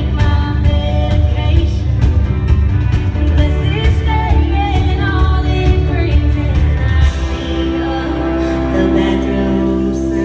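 Live country-rock band with a woman singing, heard from the audience. About seven seconds in the drums and bass drop away, leaving a held chord under the voice.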